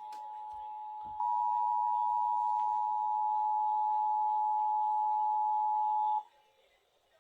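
Emergency Alert System two-tone attention signal over FM radio: a steady dual tone (853 and 960 Hz), growing louder about a second in and cutting off abruptly about six seconds in.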